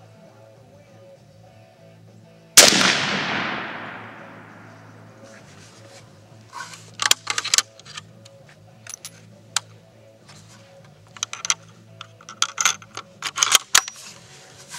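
A single rifle shot from a Mosin-Nagant 91/30 firing 7.62x54R, loud and dying away over a second or so. From a few seconds later come a string of sharp metallic clicks and clacks as the bolt is worked and the rifle reloaded by hand.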